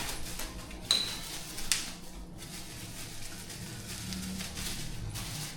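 New chair caster wheels being handled: two sharp clacks about one and nearly two seconds in, the first with a short ring.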